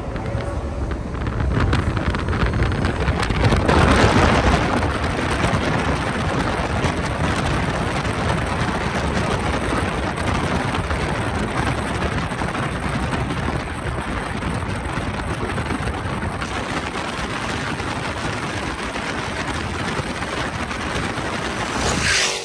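Steady rush of wind and road noise from a car moving at highway speed, swelling loudest about four seconds in.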